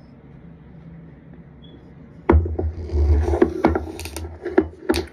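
Glass sparkling-water bottle being handled and its cap twisted: quiet at first, then from about two seconds in a run of sharp clicks and knocks over a low rumble of handling noise.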